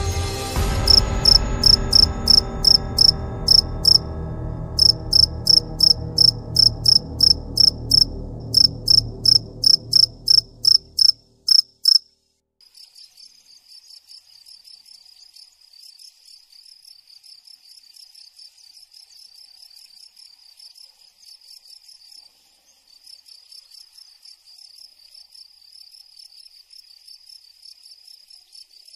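Crickets chirping. For the first dozen seconds a loud, close cricket chirps in an even rhythm of about three chirps a second over a low drone that fades out. Then it stops, and a fainter, steady cricket chorus carries on, with a brief break about three quarters of the way through.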